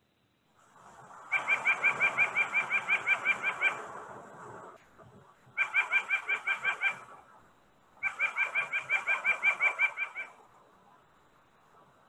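A recording of a white-breasted nuthatch giving its laughing call: three quick runs of rapidly repeated notes, about seven a second. The first run is the longest, about two and a half seconds.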